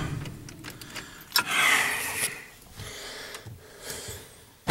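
Quiet vehicle cab: camera handling with a few light clicks and knocks, and a short breathy rustle about one and a half seconds in.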